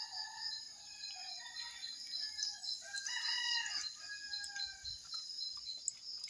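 Roosters crowing, several long drawn-out calls with the strongest about halfway through, over a steady high pulsing chirr of night insects.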